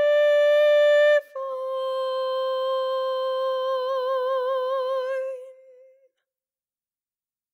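A woman singing unaccompanied, holding a high note, then after a quick breath just over a second in, stepping down to a final long note whose vibrato widens as it fades away about six seconds in.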